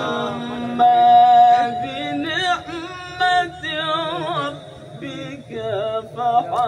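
A male qari's unaccompanied melodic Quran recitation: a long held note about a second in, then drawn-out vowels with rapid wavering ornaments.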